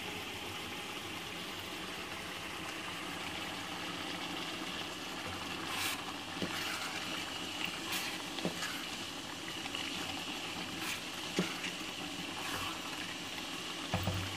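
Mutton and cabbage curry sizzling in oil in a pot with a steady hiss. A wooden spoon stirs through it, knocking and scraping against the pot a few times from about six seconds in.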